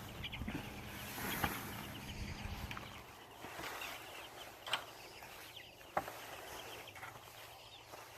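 Chickens peeping and chirping in short calls, with a few sharp knocks and some rustling as a chicken tractor is moved over rough ground.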